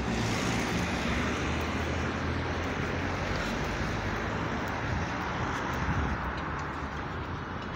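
Road traffic: cars driving past on a town street, a steady hiss of tyres and engine noise.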